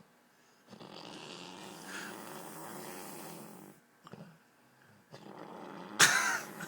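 A sleeping person snoring heavily: a long rasping breath, a brief pause, then another breath that ends in a sudden loud, pitched snort about six seconds in.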